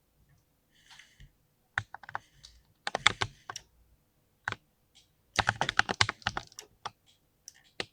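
Typing on a mechanical keyboard with linear switches: rapid runs of key clicks in irregular bursts, broken by short pauses and a few single keystrokes.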